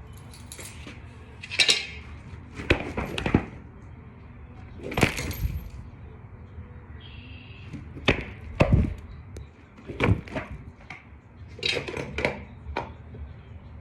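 Irregular clinks, clatters and knocks of small hard objects being moved about, a dozen or so short sounds in loose clusters: someone rummaging through tools and parts while searching for a lost screw.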